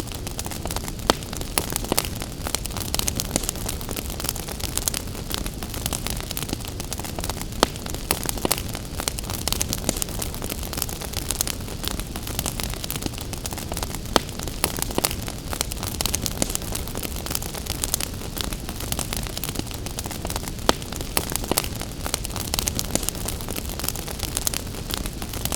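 Wood fire crackling with frequent small pops and a few louder snaps, over a steady hiss of gentle rain.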